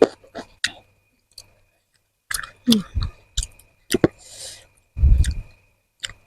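Close-miked chewing of crunchy food: crisp, irregular crunches in bursts, a pause of about a second and a half, then more crunching with heavier, duller bites near the end.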